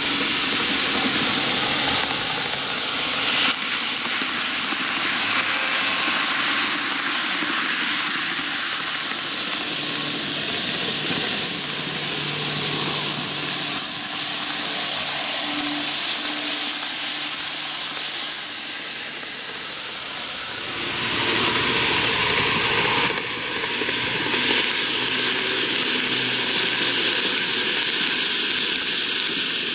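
N gauge model Keihan electric trains running on TOMIX superelevated track: a steady hiss of wheels rolling on the rails with a faint motor hum. It dips briefly about two-thirds through, then picks up again.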